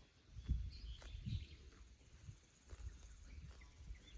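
Faint outdoor ambience with a few short bird chirps and some low thuds.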